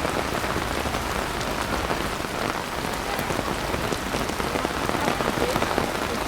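Heavy rain pouring steadily: a dense, even hiss of falling rain with many small drop taps, no thunder.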